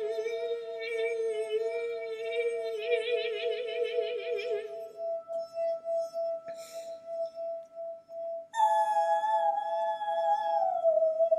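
Wine glass rubbed around its rim, singing a steady pure ringing tone. Alongside it a second tone wavers with vibrato and stops about halfway. After a single click, another tone comes in about three-quarters of the way through and slides down in pitch near the end.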